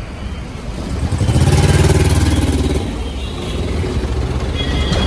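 A truck's engine running as it drives past close by, swelling to loudest about two seconds in, over steady road traffic noise.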